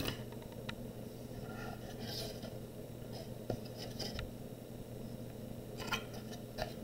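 Light handling sounds as a wooden model airplane is lifted and turned and a paintbrush is worked on it: a few soft clicks and short rustles, over a steady low room hum.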